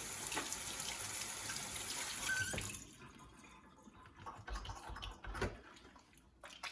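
Sink tap running while hands are washed, shut off about three seconds in, followed by a few faint clicks and handling sounds.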